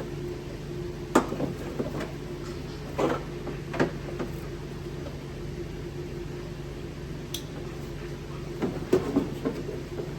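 Scattered plastic clicks and knocks of wiring-loom connectors and the ECU being handled, in a few short clusters, over a steady low hum.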